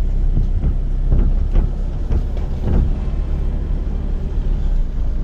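Pickup truck running, heard from inside the cab as a steady low rumble, with a few faint knocks.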